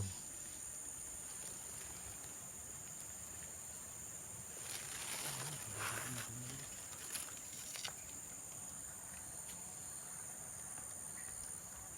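Insects chirring in a steady, high-pitched drone, with a brief rustle about five seconds in.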